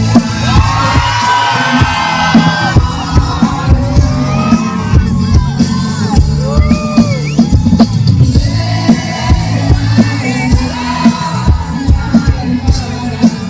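Live concert music over a PA with a steady heavy drum beat and a singing voice, while the crowd screams and cheers.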